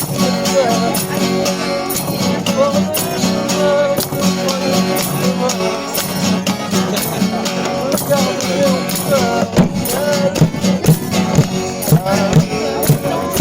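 Music: strummed guitar with tambourine-like percussion keeping a steady beat.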